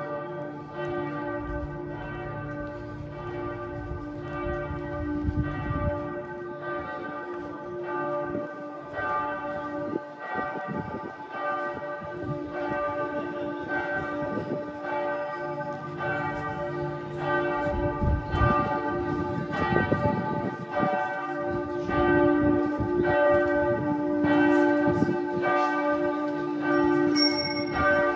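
Several church bells ringing together in a continuous peal. Strike follows strike, so their tones overlap into one sustained ringing.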